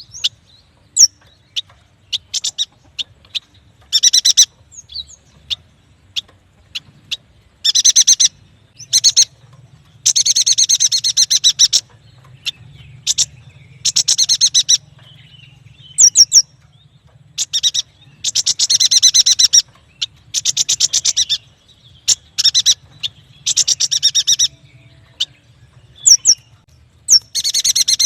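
Yuhina singing: loud, high-pitched bursts of rapid chattering trill, each half a second to two seconds long, repeated again and again with short single chirps in the gaps.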